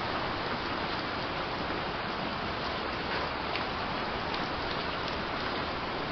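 Light rain falling steadily, an even hiss with a few individual drops ticking now and then.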